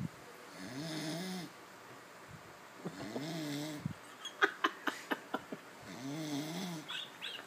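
A sleeping man snoring: three long, pitched snores about every two and a half seconds, each rising and falling in pitch, snoring that the filmer puts down to undiagnosed sleep apnea. A quick run of sharp clicks falls between the second and third snore.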